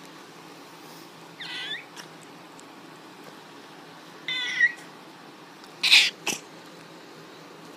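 A black cat giving two short, high-pitched squeaks in place of a meow, about a second and a half apart from four and a half seconds in... one near the start and one about halfway. About six seconds in, a loud brief rustle and a smaller bump right at the microphone.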